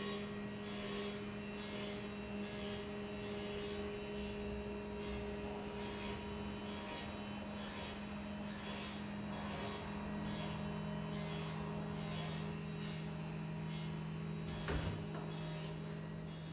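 Electric motor of a motorised TV lift running steadily as it lowers the TV into its cabinet, a low hum that drops slightly in pitch about ten seconds in. A faint regular tick comes a little more than once a second.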